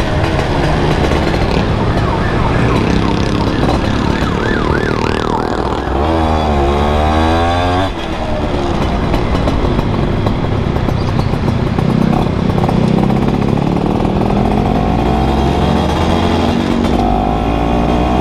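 Yamaha F1ZR's two-stroke single-cylinder engine, breathing through a CLD C1 aftermarket exhaust, pulling under throttle while riding, its pitch rising and falling with the revs. About six seconds in it climbs hard, then drops off sharply near eight seconds at a gear change.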